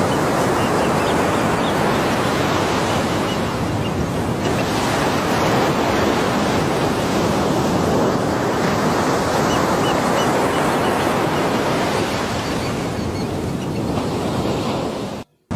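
Ocean surf washing in a steady rush that swells and eases slowly, with a few faint high chirps early on and in the middle; it cuts off suddenly near the end.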